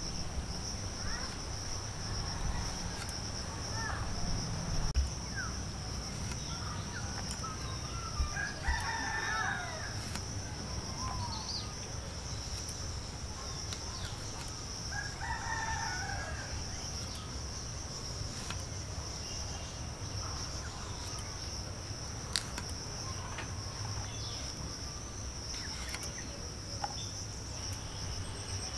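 A rooster crows twice, about a third of the way in and again about halfway, each call lasting a second or two. Under it runs a steady high insect drone, with a few faint knocks.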